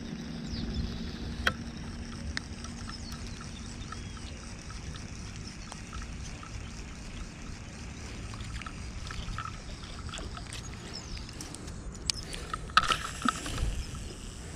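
Outdoor pond-bank ambience: a steady low rumble with faint, scattered ticks. Near the end comes a short cluster of louder clicks and rustling as the rod and reel are handled.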